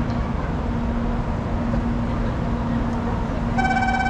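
Steady hum and rumble of a Shinkansen train standing at the platform with the station's open-air noise. Near the end, a steady electronic platform tone starts and holds.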